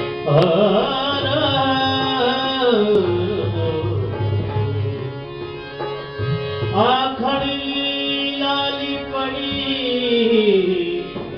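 Rajasthani folk music: a singer holds two long, wavering sung phrases, each sliding down in pitch at its end, over a steady drone and instrumental accompaniment.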